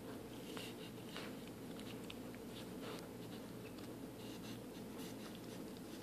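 Faint scratchy rustling and small scattered clicks of a husky puppy gnawing on a braided rope toy.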